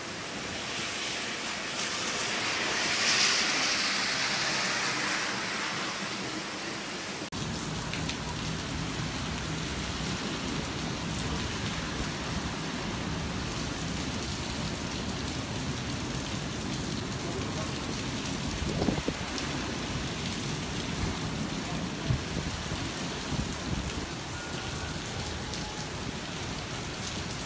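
Torrential rain and gusting wind of a Mediterranean hurricane-like storm, a steady rushing noise. A louder gust of wind-driven rain swells about three seconds in. Later, rain pours down on a street, with a few knocks.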